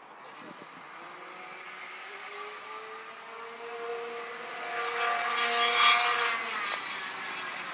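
Twin-engine kart with two K78 two-stroke engines running on track: a steady engine buzz whose pitch climbs over the first few seconds as it accelerates, getting louder to its loudest about six seconds in as the kart passes, then easing off.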